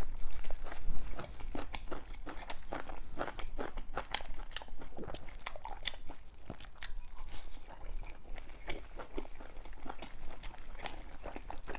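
A person eating close to the microphone: biting and chewing with a quick, irregular run of crunching and mouth clicks.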